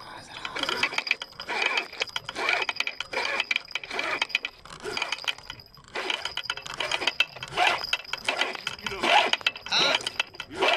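Spinning fishing reel being cranked, a rapid ratcheting clicking in spells about a second long with short pauses and one longer pause about halfway: a hooked carp being reeled in.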